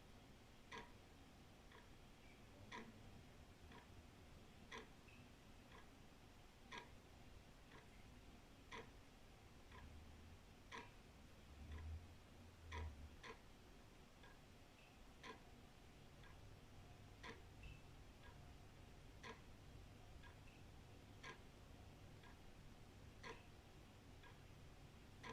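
Old wall clock ticking faintly, about one tick a second, with a louder tick alternating with a softer tock.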